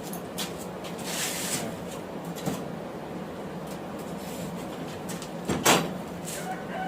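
Forge running with a steady rush, and a single sharp metal clank or scrape about five and a half seconds in, as of steel or tongs handled at the forge.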